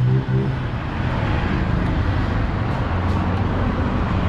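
Steady low motor hum over a constant wash of street noise.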